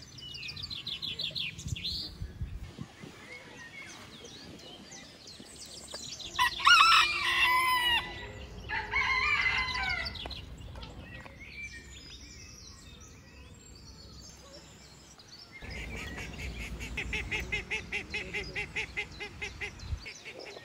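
A rooster crowing, the loudest calls falling about a third of the way through, with other birds giving quick runs of repeated high chirps near the start and again near the end.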